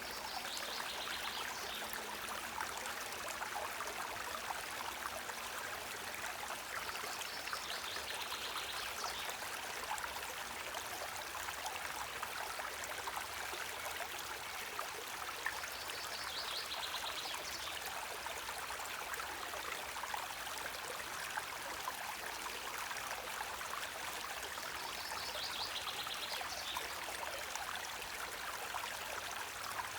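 Small stream running steadily, water rippling and trickling. A short high trill comes in four times, about every nine seconds.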